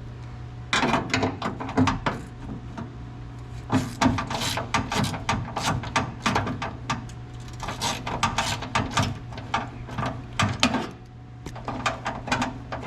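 Irregular metallic clicks and rattles of a hand tool working loose the nuts that hold the window glass clips inside a car door, in quick clusters with short pauses.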